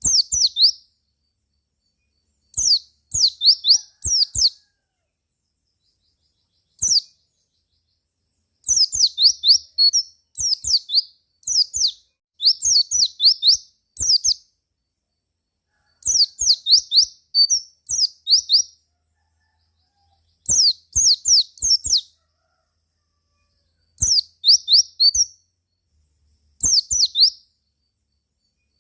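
A white-eye (pleci) singing in bursts of rapid, high-pitched chirping notes, each phrase lasting one to a few seconds with short silences between, used as a lure song to set other pleci singing.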